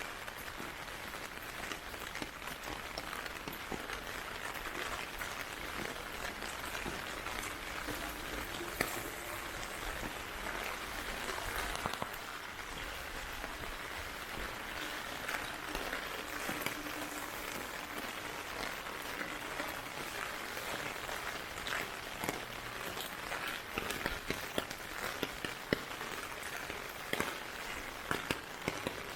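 Heavy typhoon rain falling steadily, a constant hiss with many scattered sharp drop ticks that come thicker near the end.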